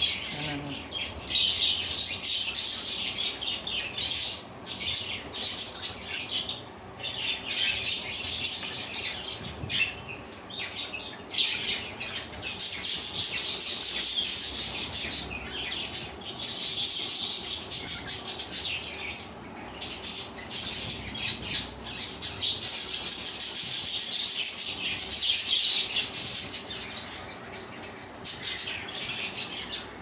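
Cockatiels giving harsh, high-pitched calls in repeated bursts a second or two long, with some wing flapping.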